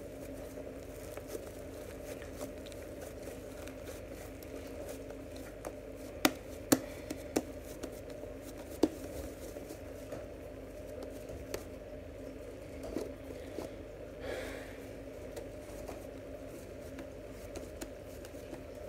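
White foam slime being kneaded and squeezed in the hands, squishing and crinkling, with a few sharp pops and clicks, loudest about a third of the way in. A steady low hum runs underneath.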